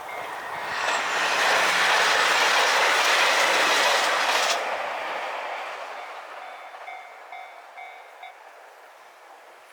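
KiHa 261 series diesel limited express train passing over a level crossing. The train noise swells over the first second or so, stays loud, then drops off sharply about four and a half seconds in and fades as the train moves away. The crossing's warning bell rings in a repeating pattern and stops about eight seconds in.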